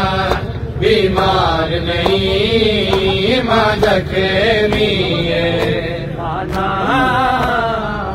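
A man's voice, amplified, chanting a Shia mourning lament (noha) in a wavering, drawn-out sung line, with scattered sharp smacks from the crowd.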